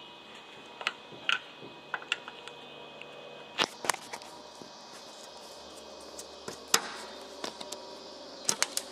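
Irregular clicks and knocks of hands and tools working a caboose's metal cupola window frame and aluminum window track. The two sharpest knocks come about three and a half and seven seconds in, and a quick cluster of clicks comes near the end.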